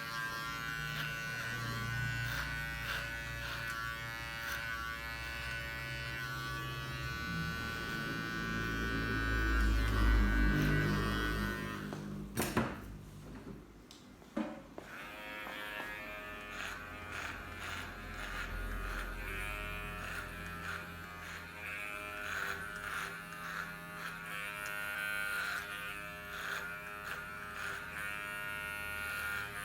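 Cordless cutting tool with an upgraded motor running at high speed, its whine shifting in pitch as the load changes. It cuts off with a click about twelve seconds in and starts again about two seconds later.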